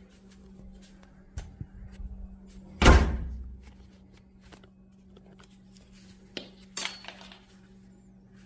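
An oven door shut with a single heavy thunk about three seconds in, with a few lighter clicks and knocks of handling before and after. A low steady hum runs underneath.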